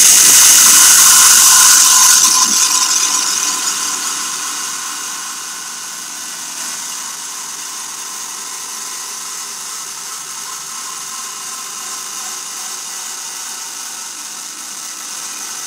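A steady hiss, loudest for the first two seconds, easing off over the next few and then holding level, with faint steady tones under it.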